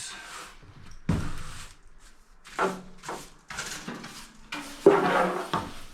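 About five separate sweeping strokes brushing shavings off the patched wheel-well panel, each a short scrape; the last is the loudest.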